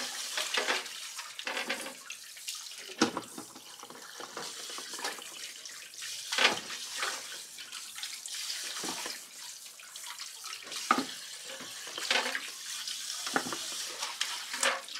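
Tap water running into a sink while peeled cassava roots are rinsed by hand, with splashes and now and then a sharp clunk as a root is dropped into a steel cooking pot.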